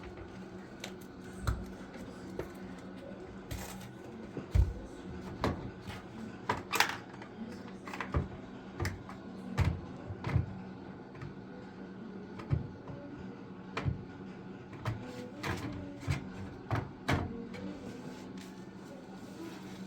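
Irregular knocks and clicks, as of objects being handled or set down, over a steady low hum.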